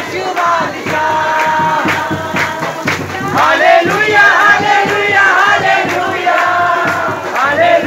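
A congregation worshipping loudly, with many voices singing and crying out together in prayer.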